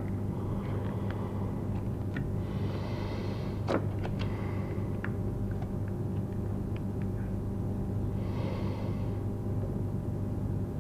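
Steady low electrical hum of an old soundtrack, with a few faint clicks and two brief soft rustles.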